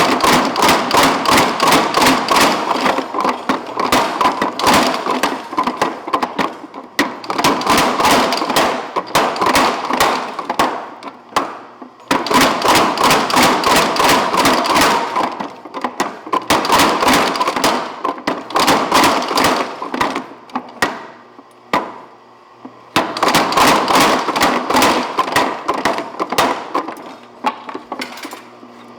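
Little Giant 250 mechanical power hammer pounding a hot steel bar, drawing it down to square stock. The blows come in fast, even runs of several strikes a second, about five bursts of a few seconds each with short breaks between.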